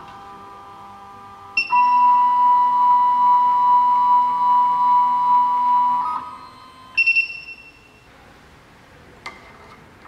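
SEC-E9 automatic key cutting machine during key clamp calibration: after a short beep, its stepper motors whine with a steady pitched tone for about four seconds as the probe carriage moves, then stop. About a second later the machine's buzzer gives a quick triple beep, and a faint click follows near the end.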